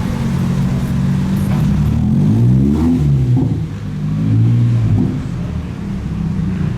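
Car engine running, revved up and back down; the pitch climbs and falls about two seconds in and again around the middle.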